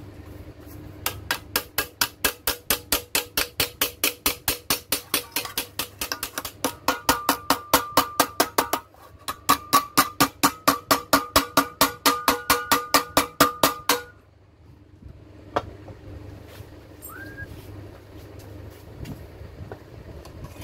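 Hammer striking a sheet-metal bracket held against a steel bar in a vice, curling its edge in. It is a fast, even run of blows, about three to four a second, with a short break partway, and the metal rings with each blow in the second half. The hammering stops about two-thirds of the way through, and one lone knock follows a moment later.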